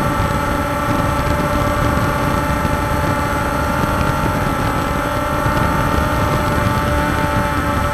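Walkera Scout X4 quadcopter's electric motors and propellers running steadily in flight, heard up close from the drone itself: an even whine of several steady tones over a low rumble.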